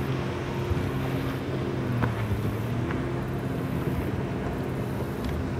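Bow-mounted electric trolling motor humming steadily, with wind on the microphone. The hum shifts in pitch about two seconds in.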